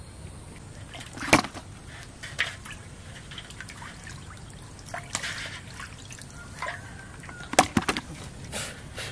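Live tilapia flopping and splashing in a container of water: irregular wet slaps and splashes, the sharpest about a second and a half in and again near the end.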